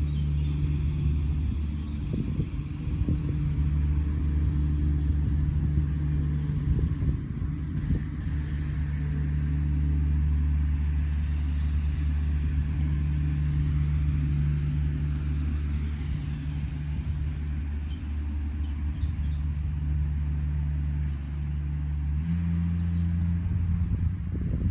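A steady low drone, like a running engine or a held bass note, that shifts to a higher pitch about 22 seconds in.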